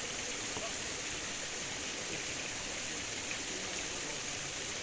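Steady rushing of flowing water from a stream or waterfall.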